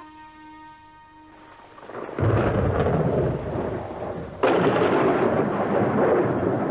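The last held notes of accordion music fade, then thunder: a clap and rumble about two seconds in, and a second, sharper clap a couple of seconds later that rolls on.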